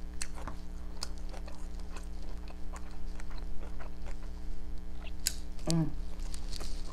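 Close-miked eating sounds: a fork clicking and scraping through fried rice in a clear plastic tray, with mouth and chewing noises as small, irregular ticks. A brief hummed voice sound comes near the end.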